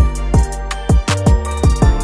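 Background music with a steady beat: punchy kick drum, bass and plucked instrument.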